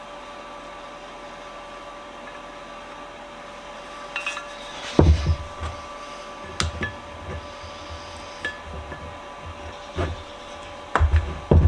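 A run of sharp metal knocks and heavier thuds, the loudest about five seconds in and a cluster near the end, as the stuck Acme screw of an Erie 102 1/2 bench vise is worked loose; paint packed on the screw is making it bind. Before the knocks there is only a steady faint background hum.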